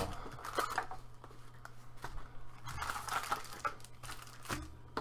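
Gloved hands handling a cardboard hobby box and foil card packs: fairly quiet crinkling and rustling with a few light knocks, the clearest one near the end.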